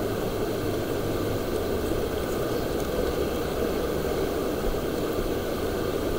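Shallow river rapids rushing steadily over a rock riverbed.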